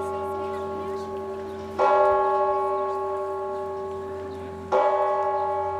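A single large bell tolling slowly, struck twice about three seconds apart at the same pitch, each stroke ringing on and fading away; the ring of the stroke before is still dying out at the start.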